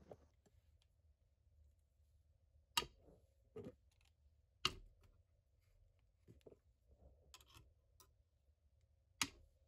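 Magnetic bases of a third hand's metal gooseneck arms snapping onto its steel base plate and being shifted about: a few sharp clicks spaced a second or more apart, with fainter ticks between.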